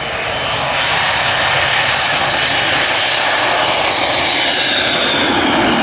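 Four-engine jet aircraft flying low on landing approach: a loud, steady jet roar with a high whine on top, the whine sinking slightly in pitch near the end as the aircraft passes.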